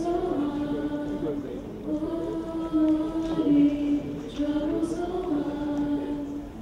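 A choir of voices singing long held notes, the pitch moving from one sustained note to the next every second or so.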